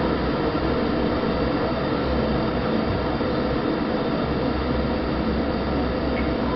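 Steady low rumble with hiss, even throughout, with no distinct knocks or calls.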